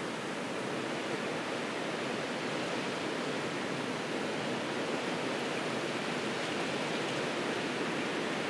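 Steady rushing of blizzard wind through pine and bare trees, with no letup.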